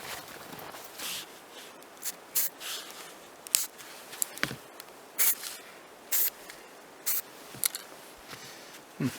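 Footsteps, short scuffing steps about once a second.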